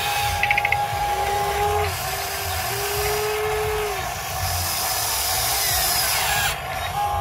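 Huina 580 RC excavator's electric motors whining in short, repeated spurts as the arm and bucket dig into soil. The longest whine runs about a second, roughly halfway through.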